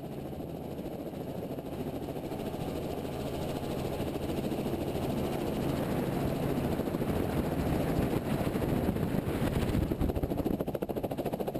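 Helicopter running at lift-off, its engine and rotor noise growing steadily louder as power comes up, heard from a camera mounted on the outside of the cabin.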